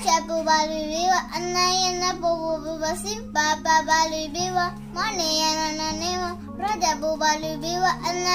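Young girl singing a song in a high child's voice, over low held notes that change about every second and a half.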